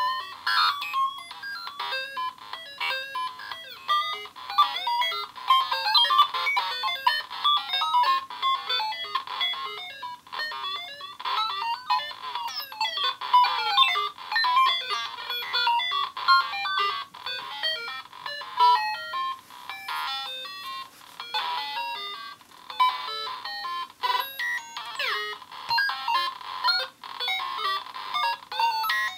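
Circuit-bent VTech Alphabet Apple toy played by a Synthrotek 8-step sequencer: a fast, unbroken stream of short, high electronic beeps and glitchy bleeps, with a pattern that keeps changing as the sequencer's knobs are turned.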